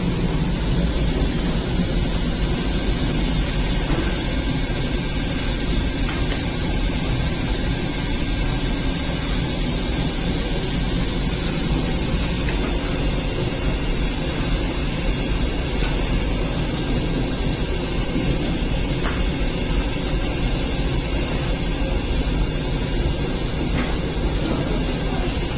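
Steady mechanical rumble with a hiss from bakery machinery running, including a revolving-hearth bread oven.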